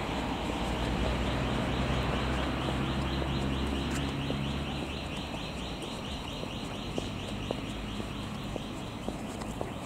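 A motor vehicle's engine hum that fades away after about four seconds, over a rapid, repeated high chirping. In the second half come sharp knocks about twice a second.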